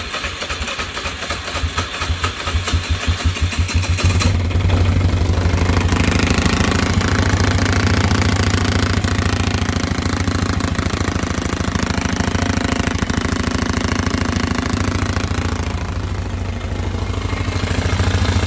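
Polaris Sportsman 500 HO ATV's single-cylinder four-stroke engine running just after starting. It is uneven for about the first four seconds, then settles into a steady idle. The running carries the awful noise and vibration the owner is trying to track down.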